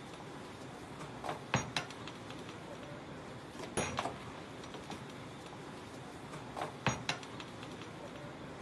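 Metal ladle knocking and scraping against a large aluminium pot of cooked rice as it is stirred: a few sharp clinks in pairs, about a second and a half in, near four seconds and near seven seconds, over steady background noise.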